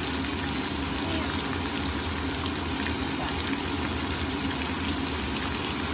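Long beans, onion and wood ear mushroom sizzling in hot oil in a wok: a steady frying hiss with scattered small crackles, over a steady low hum.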